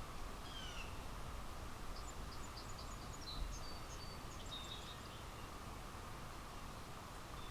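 Small songbirds chirping with short, high notes and quick trills, in scattered bursts, over a steady hiss of background ambience. A faint low bump sounds about three seconds in.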